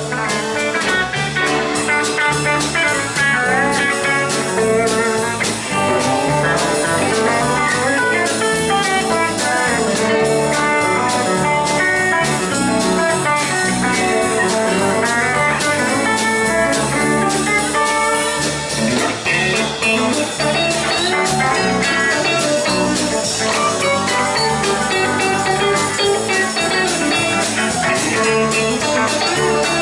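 Live country band playing an instrumental break with no vocals: electric guitar picking quick runs of notes over rhythm guitar, bass guitar and a drum kit keeping a steady beat.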